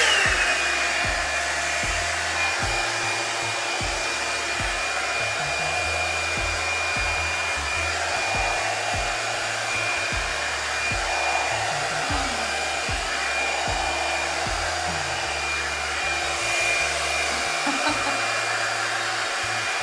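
EZ Detangler blow dryer running on its low setting: a steady rush of air with a high whine that drops and settles to a constant pitch in the first second.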